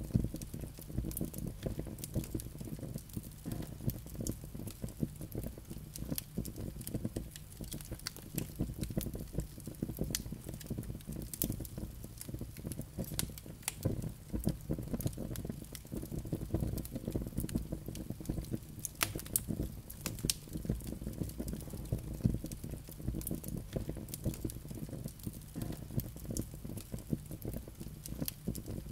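Logs burning in a fireplace: the wood crackles and pops in quick, irregular snaps over the low, steady rumble of the flames.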